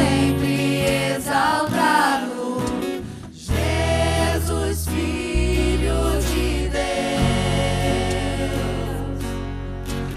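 Live worship band playing a Portuguese-language worship song: several voices singing together over acoustic guitars and electric bass, with sustained low bass notes. The music briefly drops back about three seconds in.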